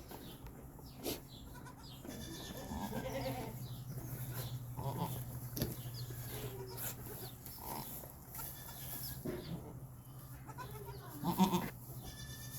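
Goats bleating several times, short pitched calls with the loudest near the end, over a steady low hum.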